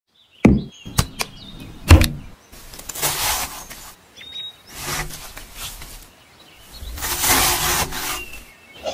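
Knife slicing through a fresh pineapple on a wooden cutting board. There are a few sharp knocks on the board in the first two seconds, then three long slicing strokes through the rind and flesh.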